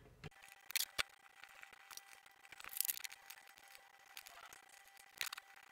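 Faint, quick metallic clicks and scrapes of a flat screwdriver turning the spoke nipples of a 144-spoke lowrider bicycle wheel to loosen the spokes, in sped-up footage. A short cluster of scraping comes near the middle, with scattered single clicks either side.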